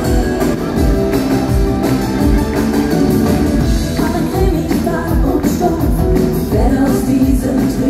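Live amplified pop-rock band playing, with women singing over electric guitar and a steady kick-drum beat about twice a second.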